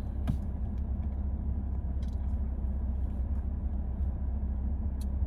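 Steady low rumble of a Lexus car's engine and road noise heard from inside the cabin, with a faint click about a quarter of a second in and another near the end.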